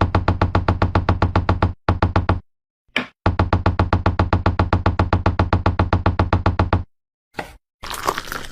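Rapid, even knocking at about eight knocks a second, with a low ring to each knock. It comes in runs that break off briefly twice and stop near the end, followed by a short crunching rustle.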